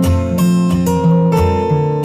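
Background music: a strummed acoustic guitar playing chords in a steady rhythm, a few strums a second.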